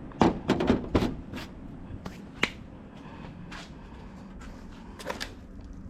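Scattered light clicks and taps of small hard parts being handled: a quick cluster in the first second and a half, one sharp click about two and a half seconds in, and a few more near the end.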